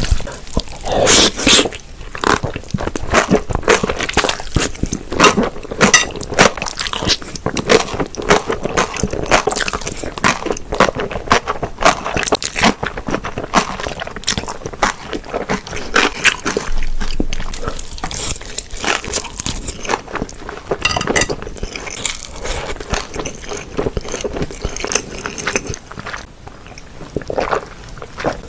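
A person chewing and biting spicy mixed cold noodles with cucumber and pork, with frequent crunches in quick irregular succession. It goes quieter briefly near the end.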